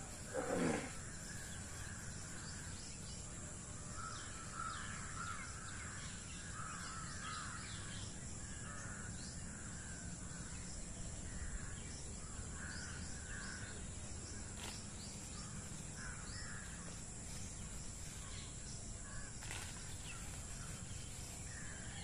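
Crows cawing off and on in an outdoor background, over a steady high-pitched whine. About half a second in there is one short, louder call falling in pitch.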